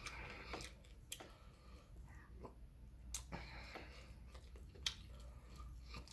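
Faint eating sounds: a fork scooping fried rice in a foam takeout container, with a few sharp clicks and taps spread through it, and quiet chewing.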